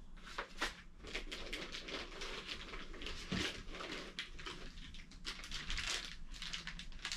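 Packaging being handled: irregular rustling, crinkling and light knocks of wrapping and foam as the scope is taken out of its box.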